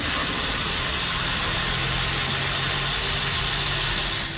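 Steady machine running noise: a loud, even hiss with a low hum under it.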